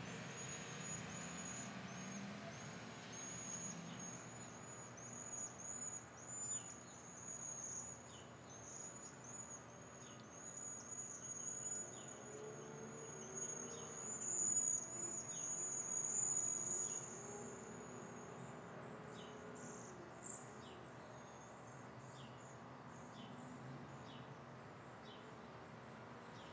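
A flock of cedar waxwings calling: many overlapping thin, very high-pitched trilled whistles, loudest about two-thirds of the way through and then tailing off, with a few fainter short chirps continuing after.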